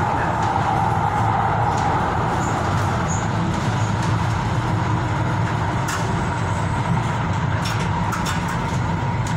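Steady rumble of a Tyne and Wear Metro train running on the rails, heard from inside the car, with a few short sharp clicks about six and eight seconds in as it comes alongside a station platform.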